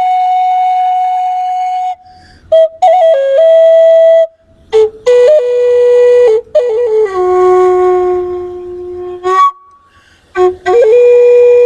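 Music on a flute-like wind instrument: a slow melody of long held notes with short breathy runs and brief pauses between phrases.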